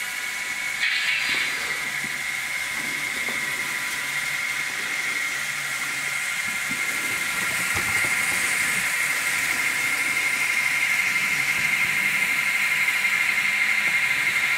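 Sound decoder of an N gauge Fleischmann BR 110 electric locomotive model playing electric-locomotive running sounds through its tiny speaker as the model moves along the track: a steady high-pitched whine over a hiss, growing slightly louder about halfway through.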